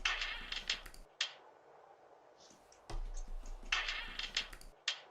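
Rapid clicking and scraping of a Ring video doorbell being handled and pulled off its mount, in two bursts about three seconds apart, each with a low hum under it.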